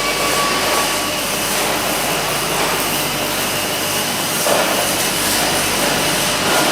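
Steady rushing hum of factory-floor machinery in a metalworking plant, continuous and even throughout, with a faint thin tone that fades out about a second in.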